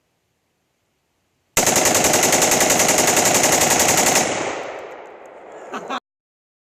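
Rapid automatic gunfire: a continuous burst of very fast, evenly spaced shots lasting about two and a half seconds, starting suddenly, then tailing off and cutting off abruptly.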